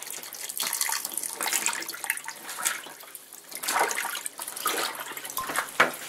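Water in the wash tub of a Panda B45 portable twin-tub washer, dripping and splashing in small, irregular bursts, the fill water just shut off.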